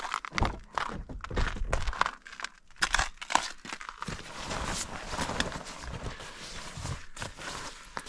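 A car's rear door is opened, with a run of sharp clicks and knocks over the first four seconds, then puffy nylon jackets rustle steadily as they are rummaged through on the back seat.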